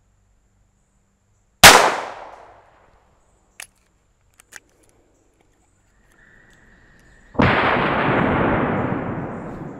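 A single .22 LR shot from a 3-inch Ruger LCRx revolver, a sharp crack that dies away within a second, followed by two faint clicks. Near the end comes a long, drawn-out blast that fades slowly over about two seconds: the same shot slowed down in a slow-motion replay.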